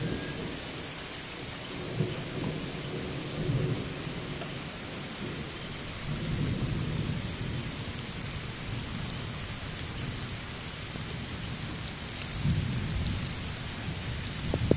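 Heavy rain pouring steadily onto a paved street, with low rumbles of thunder swelling up several times, about two, six and twelve seconds in.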